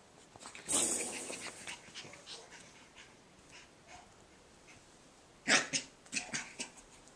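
Cavachon puppies play-wrestling over a soft toy, making short, noisy puppy sounds in bursts: a louder one just under a second in and another cluster about five and a half seconds in.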